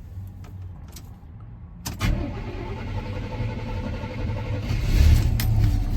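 1986 Chevrolet C10 pickup's engine starting from cold: it fires suddenly about two seconds in and settles into a rough idle, running louder for a moment near the end.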